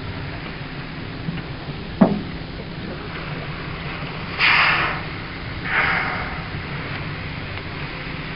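Two short exhalations, about a second and a half apart, from humpback whales blowing at the surface, over the steady hum of the boat's engine. A single sharp knock about two seconds in.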